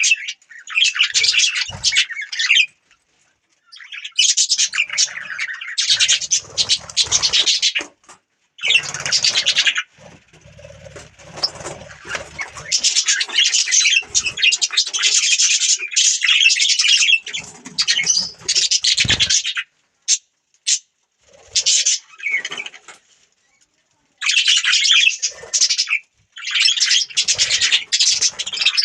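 Budgerigars chattering and chirping in quick warbling bursts with brief pauses between them.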